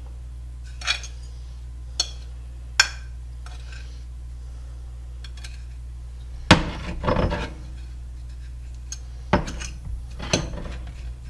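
Fork and ceramic dishes clinking while fish fillets are dipped in egg wash and set into breadcrumbs: a few sharp taps, then a louder clatter about six and a half seconds in and more taps near the end, over a steady low hum.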